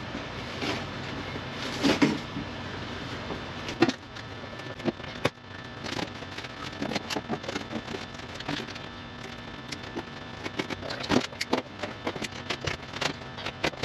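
Hands stripping a car floor: irregular clicks and knocks of plastic pieces being worked loose and handled, and the rustle of the fibrous felt under-carpet padding as it is torn up and lifted.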